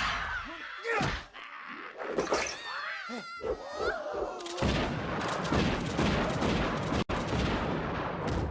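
Film fight sound effects: sudden blasts and crashes, with high, wavering shrieks in the middle. Near the end they give way to a long, loud, noisy crashing rumble.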